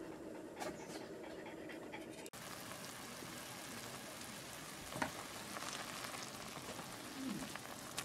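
A Cavalier King Charles spaniel panting. After a cut about two seconds in, a pot of instant noodles bubbles on a portable gas stove, with a sharp click about five seconds in.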